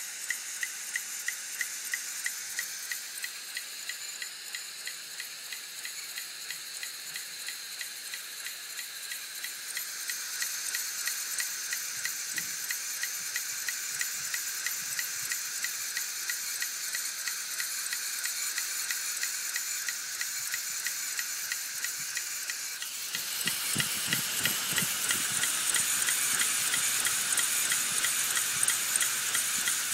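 Opened Hitachi Deskstar 7K250 hard drive running, its spinning platters giving a steady high whine over a regular ticking of about two or three clicks a second: the head actuator repeatedly trying and failing to park a crashed head. About 23 seconds in, a louder, rougher noise joins.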